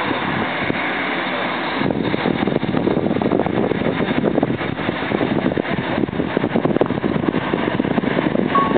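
Four GEnx turbofan engines of a Boeing 747-8 Intercontinental running on the runway, heard from afar as a steady rushing rumble. About two seconds in it turns louder and rougher.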